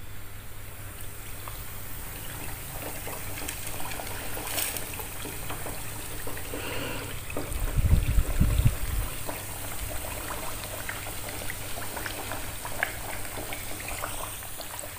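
Breaded chicken cutlets deep-frying in hot oil in a small pan: a steady bubbling sizzle full of small crackles as the coated meat goes into the oil. A few low thumps come about eight seconds in as the second piece is laid in.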